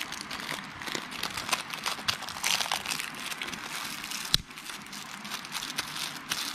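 Small clear plastic bag crinkling as fingers handle it and work it open to get at the button-cell battery for a lavalier microphone: a stream of light, irregular crackles, with one soft bump a little past four seconds in.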